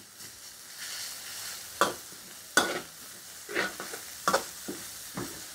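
Pounded galangal, lemongrass and garlic sizzling in hot lard in a steel wok over high heat, fried until fragrant. A metal spatula scrapes and clinks against the wok about five times as it stirs.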